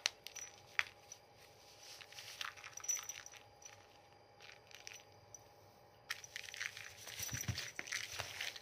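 A cat scuffling and scratching against the nylon fabric of a pop-up mesh pen while wrestling a toy mouse: irregular soft scratches, clicks and rustles, busiest near the end.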